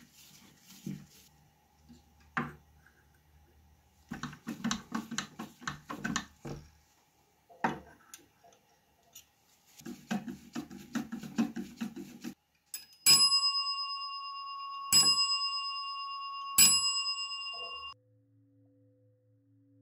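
Clicks, taps and knocks of small metal parts being handled on the telephone chassis, then the metal dome bells of a 1920s Siemens crank telephone's ringer struck three times, about two seconds apart, each strike ringing on with a clear high tone. The ringing cuts off abruptly near the end.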